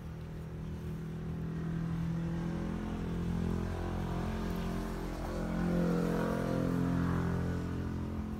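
An engine running, its hum growing louder over the first couple of seconds and peaking about six seconds in before easing off slightly.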